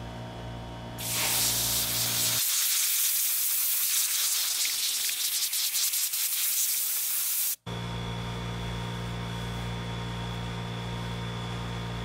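Clogged sandpaper on an electric palm sander's square pad being cleaned: a loud, harsh hiss that starts about a second in and cuts off abruptly a little past halfway. Before and after it, a steady motor hum.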